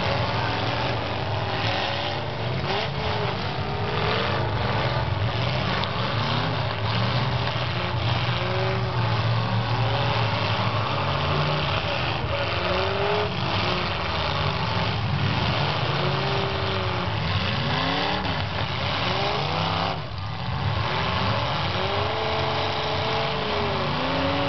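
Several demolition derby cars' engines running at once, revving up and dropping back again and again over a steady low drone, with repeated knocks of cars ramming one another.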